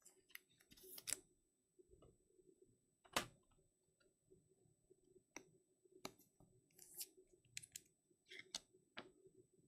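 Faint, scattered clicks and light scrapes of trading cards being slid into rigid plastic toploaders. The sharpest click comes about three seconds in, and others follow every second or so.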